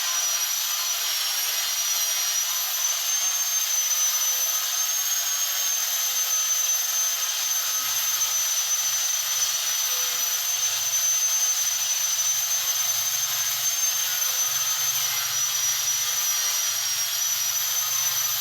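Electric hand grinder running steadily with a high whine whose pitch wavers slightly.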